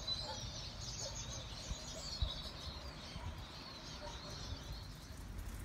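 Small birds chirping and twittering, thinning out near the end, over a low rumble.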